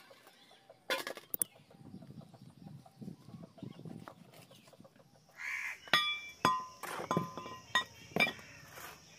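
A whole chicken being cut up with a large curved chopping blade on a wooden block: soft cutting and handling sounds, then, in the second half, several sharp metallic clinks that ring briefly.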